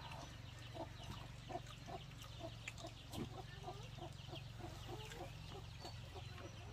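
Faint short animal calls repeating about twice a second, with finer high chirping above them, over a steady low hum.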